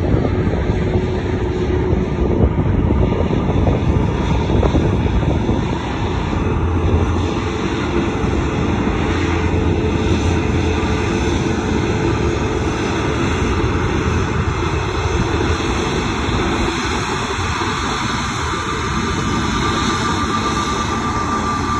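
Twin turbofan engines of an Airbus A320neo-family airliner running at taxi power as it rolls toward the microphone: a steady rumble and hiss, with a thin whine coming in near the end.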